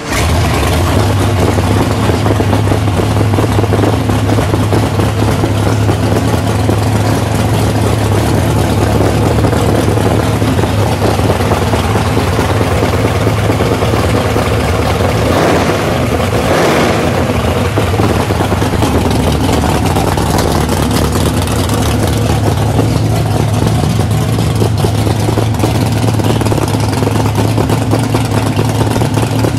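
426 Hemi V8 of a 1968 Plymouth Barracuda Super Stock drag car, with twin four-barrel carburettors, running steadily and loud. The sound swells briefly about halfway through.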